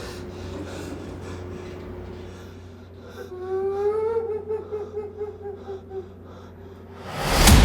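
A high-pitched eerie laugh that rises, then breaks into quick pulsing 'hihihi' for about three seconds over a faint dark music drone. Near the end a sudden loud boom of a horror sting comes in.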